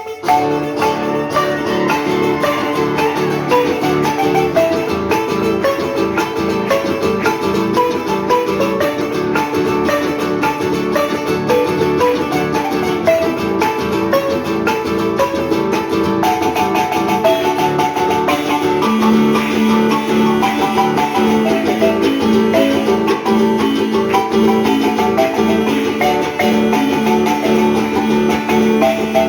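Nicaraguan marimba playing a lively dance tune, its notes sounded as quick runs of repeated mallet strokes, with a steady repeated low note coming in about two-thirds of the way through.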